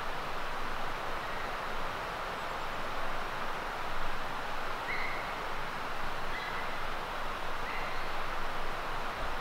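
Steady rushing of a flowing creek, with three short bird calls a little past the middle.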